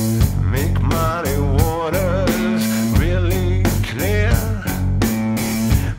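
A blues-rock band playing: cigar box guitar over a steady drum kit beat and bass. A pitched melody line slides and wavers through the middle.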